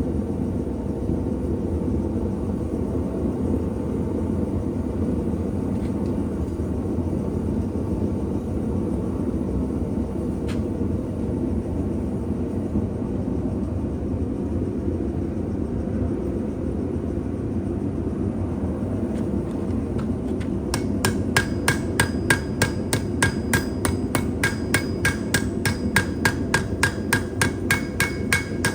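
A steady low roar, then from about three-quarters of the way in a blacksmith's hammer striking steel on an anvil in a quick even rhythm, about three blows a second, each blow ringing. It is the rhythm of drawing out the stock of a forged spoon.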